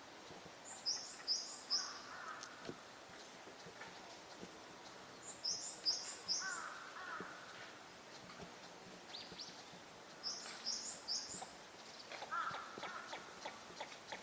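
Bird calls: three bouts of three or four short, high chirps, each bout followed by a lower, rougher note, about four to five seconds apart. Near the end comes a run of short, clicky notes about twice a second.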